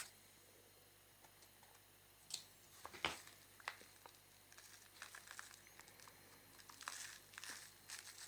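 Faint crinkling and scattered clicks of a plastic washing-powder pack being cut open and handled, the loudest rustle about three seconds in and a run of small clicks in the second half.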